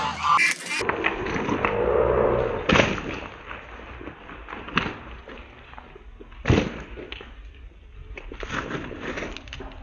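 Flock of white domestic geese honking. A few sharp thuds stand out, the loudest about three seconds in and again past six seconds.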